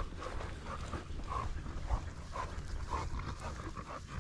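Hog-hunting dog barking in the distance, short calls repeating several times, over a low rumble.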